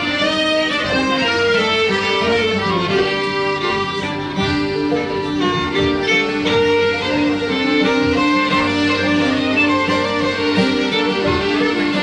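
Live folk music: three fiddles playing the tune together, backed by accordion, acoustic guitar and banjo.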